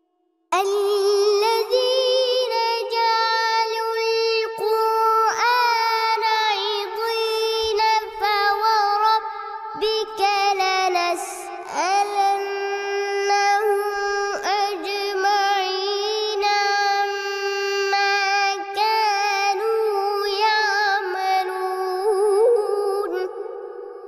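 A young boy's high voice reciting the Quran in a melodic tajweed style, with long held notes and ornamented turns, starting about half a second in and fading near the end.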